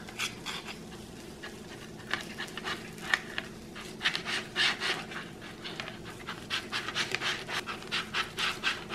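A dog panting in quick, repeated breaths, faint at first and stronger from about two seconds in, over a faint steady hum.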